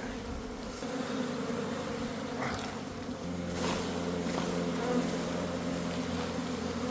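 A honey bee colony buzzing: a dense, steady hum of many bees, which grows a little stronger about three seconds in. The bees are stirred up after their nest has been opened for removal.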